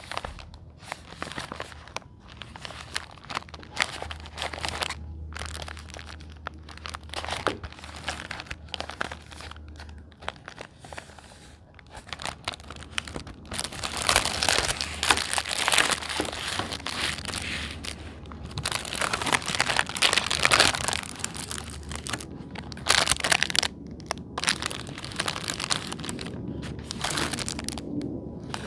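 Plastic packaging crinkling and rustling as fidget toys are unboxed by hand, with small crackles and tearing; it grows louder in two stretches around the middle.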